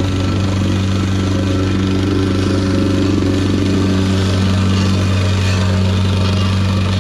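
An engine running steadily at an even speed, a low, constant hum with no revving.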